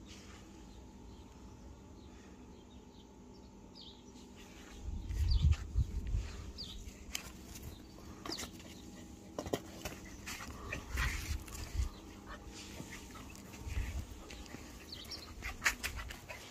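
A Labrador-mix puppy playing and giving a few short yelps and whimpers. From about five seconds in, low thumps of footsteps and phone handling and a few sharp clicks come through.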